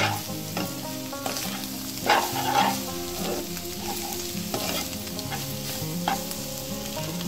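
Metal spatula stirring and scraping scrambled egg and dry prawns around a nonstick pan, over a steady frying sizzle in the last minutes of cooking. The spatula scrapes or knocks against the pan several times.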